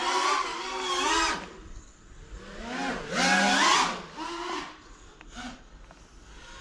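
Electric motors and propellers of a 5-inch FPV freestyle quadcopter whining in surges as the throttle is punched and cut. The pitch rises and falls with each surge; the loudest comes about three seconds in, with shorter, quieter blips after it.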